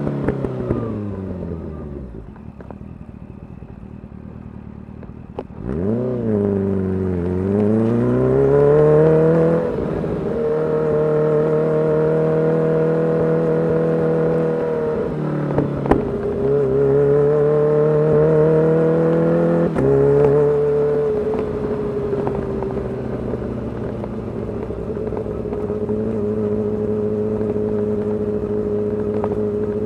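Kawasaki Ninja H2's supercharged 998 cc inline-four with a full titanium exhaust, heard while riding. The engine note falls away and stays low for a few seconds. It then revs up again, with pitch drops at the gear changes, and settles into a steady cruise.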